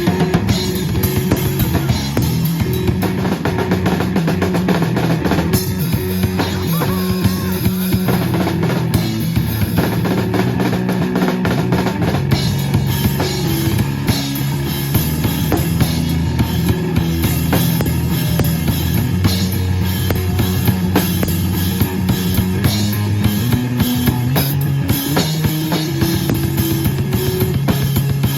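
Live rock band playing, with the drum kit prominent: kick and snare driving a steady beat under bass and electric guitar.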